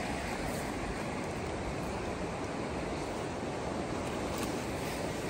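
Steady rushing wind noise, even throughout, with no distinct sounds standing out.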